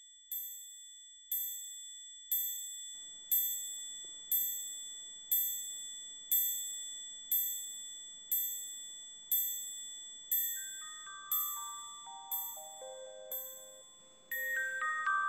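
Background music: a high ringing note struck about once a second over a held high tone, joined about ten seconds in by a slow descending run of notes that grows fuller near the end.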